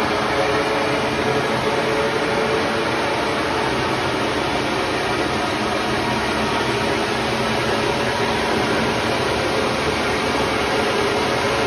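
Honey extractor's V-belt and pulley drive running with a steady, noisy mechanical whir, which the owner takes for a dry bearing.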